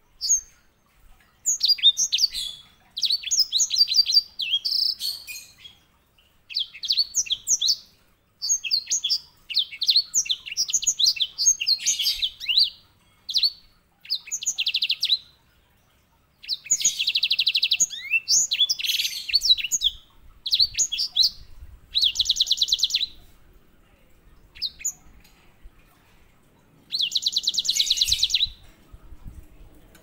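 Grey singing finch (white-rumped seedeater) singing in bursts of quick, high twittering phrases with short pauses between them. Several phrases end in fast, even trills, the rolls prized in this bird, the longest near the end.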